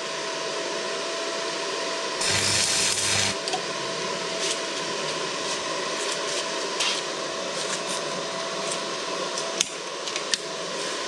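Stick welding tack welds on thick steel with a Suzukid WELD-ON140 arc welder at 140 amps: the arc crackles and buzzes once for about a second, a couple of seconds in. Between welds there is a steady hum with a high tone, and a few light clicks near the end.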